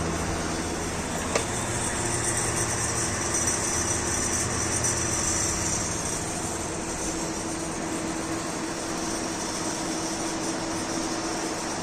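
Electric fan running: a steady motor hum under a rush of moving air, with a single click about a second and a half in.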